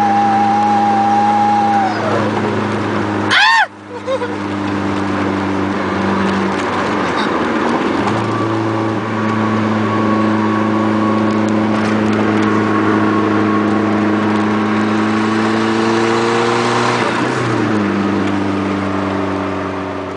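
Dodge SRT-4's turbocharged 2.4-litre four-cylinder running, its exhaust giving several steady droning and whistling tones at once. A higher whistle falls away about two seconds in, the sound cuts out sharply with a quick swoop a second or so later, and the tones slowly rise in pitch before dropping back near the end. The owner blames these strange sounds on a failing 16G turbo with extreme horizontal shaft play.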